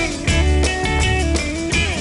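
Early-1960s British pop record, an instrumental passage with guitar over bass and drums and no vocal.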